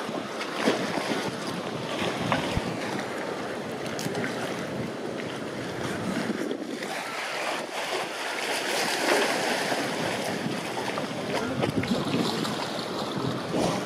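Pool water sloshing and splashing as California sea lions swim fast laps, with waves washing against the enclosure walls and a few sharper splashes.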